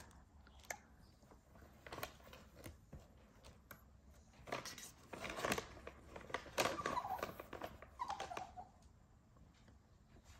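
Yorkshire terrier rummaging in an open cardboard box: scattered rustling and scuffling, with a few short dog vocal sounds in the middle of the stretch.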